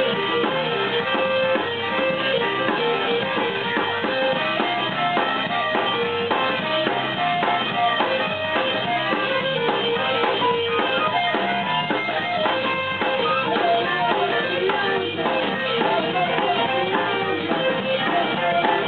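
Live band music: guitar playing held notes over a drum kit, loud and continuous.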